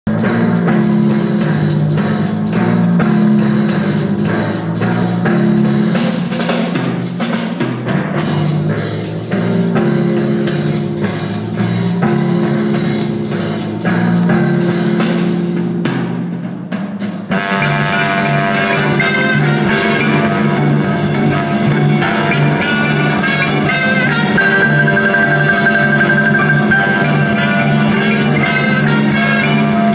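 Live swing-jazz band playing, with timpani struck on pitched notes alongside upright bass, guitar and xylophone. The sound fills out into the full band about 17 seconds in, and a fast repeated high note comes a little later.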